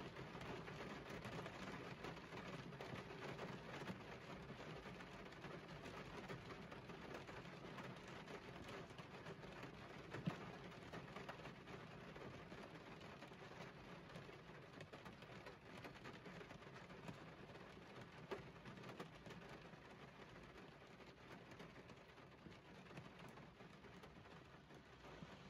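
Faint, steady rain ambience, slowly fading down, with two small ticks about ten and eighteen seconds in.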